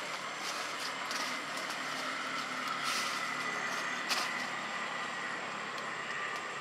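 Steady outdoor background noise with a faint high whine and a few light clicks, like distant road traffic.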